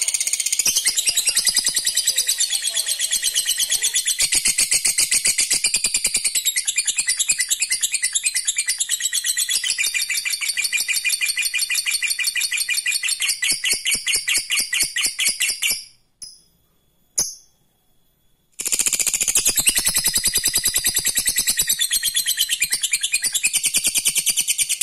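Lovebird ngekek: a long, fast chattering trill made of rapid, evenly repeated high-pitched pulses. It breaks off for about two and a half seconds about two-thirds of the way through, then picks up again.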